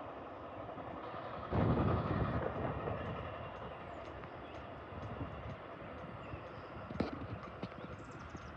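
Metra commuter train running away down the track after passing through the station without stopping, its rumble dying down. A louder rush of noise starts about a second and a half in and lasts about a second, and there is a sharp click about seven seconds in.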